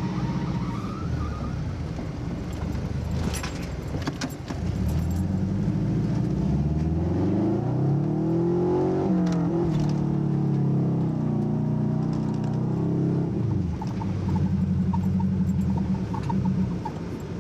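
Car engine revving, heard from inside the cabin of a Subaru, its pitch climbing and falling again and again. A few metallic clinks and rattles come about three to four seconds in.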